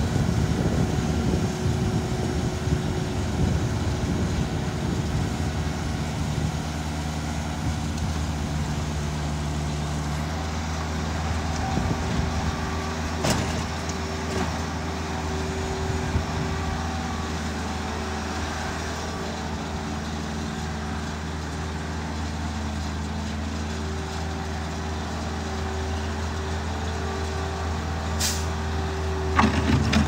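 Diesel engines of a Bobcat S450 skid steer loader and an Ashok Leyland dump truck running steadily as soil is loaded into the truck, with a couple of sharp knocks partway through and louder clatter near the end.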